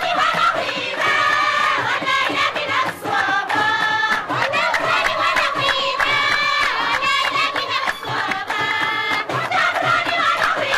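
A group of women singing a traditional Amazigh folk song in chorus, with rhythmic hand clapping.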